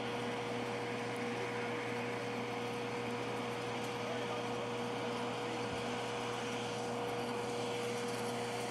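Steady mechanical hum with a constant high whine, from machinery running at a parked airliner on the ramp.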